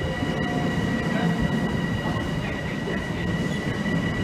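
Long Island Rail Road commuter train moving out of the station: a steady rumble of cars on the rails, with a steady high whine above it.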